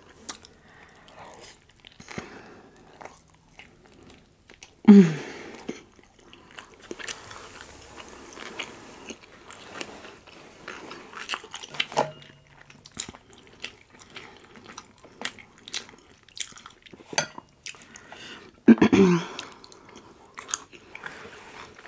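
A person chewing and biting food close to the microphone, with crunches and wet mouth clicks. Twice a short voiced sound with a falling pitch, about five seconds in and near the end.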